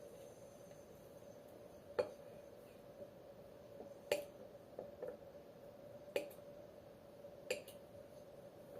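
Light clicks and taps of small household objects being handled: four sharp ones about two seconds apart, with softer taps between, over a faint steady hum.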